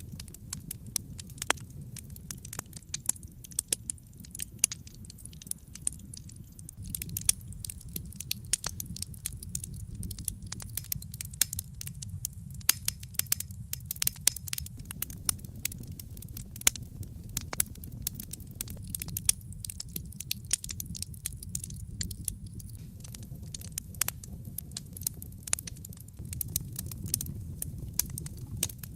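Wood fire in a fireplace crackling, with dense irregular sharp pops and snaps over a steady low rumble of the flames.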